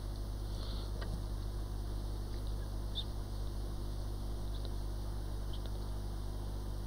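Steady low electrical hum from the repair bench, with a few faint, short ticks and crackles as a heated soldering tool works on a phone logic board.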